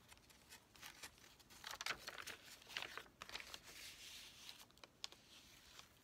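Quiet, irregular rustling and crinkling of paper being handled while working on a handmade journal, busiest in the middle of the stretch.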